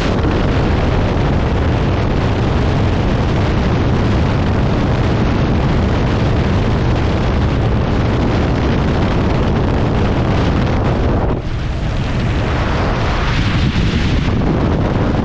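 Heavy wind buffeting the microphone: a loud, continuous rumbling roar that eases a little about eleven seconds in.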